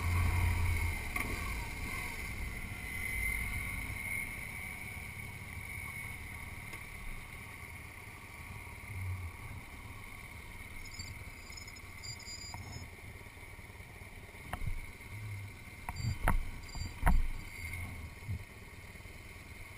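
BMW motorcycle being ridden, engine and wind noise getting quieter as it slows down. A few sharp knocks near the end.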